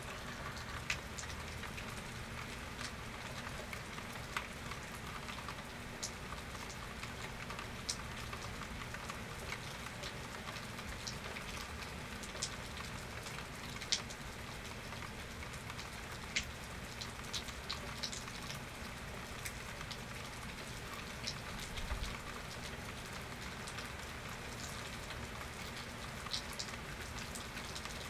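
Steady rain falling, with scattered sharp drops ticking loudly against nearby surfaces over the even hiss of the downpour.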